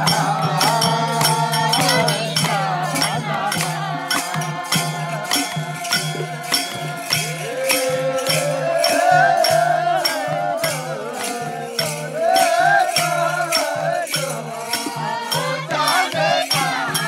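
A group singing a Nepali Salaijo/Jhamre folk song, accompanied by a madal hand drum, with sharp percussion strokes keeping an even beat of about two and a half a second.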